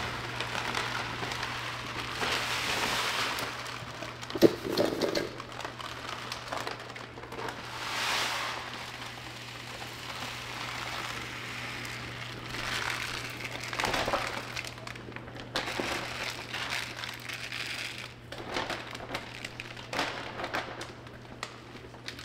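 Dry long-grain rice pouring from a plastic bag into a plastic storage bin: a rushing, crackling hiss of grains that swells in several surges, with the bag crinkling. A sharp knock about four seconds in is the loudest moment.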